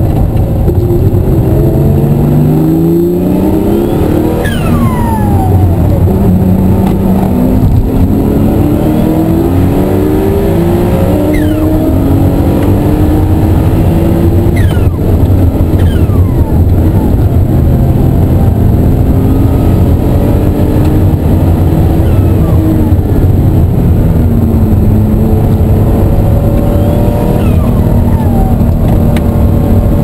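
Ruf CTR "Yellow Bird" twin-turbo flat-six at full track pace, heard from inside the cabin: the engine pitch climbs again and again as it pulls up through the gears, with a few short falling whistles in between.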